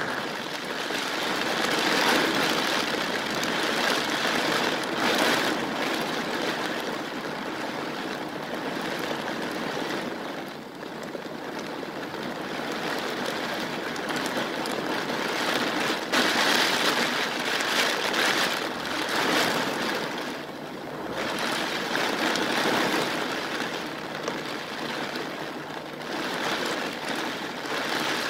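Heavy rain pouring down, a dense hiss that swells and eases every few seconds.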